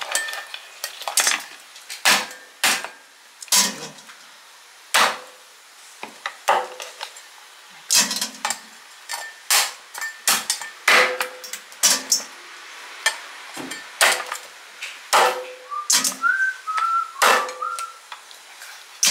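Kitchen knife chopping through a raw lobster's shell on a cutting board: a long string of sharp, irregular knocks, about one or two a second. Near the end a person whistles a few short notes.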